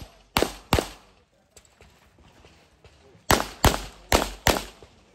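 Pistol shots from a practical-shooting competitor. Two quick shots come first, then after a pause of about two and a half seconds four more, each about a third to half a second apart.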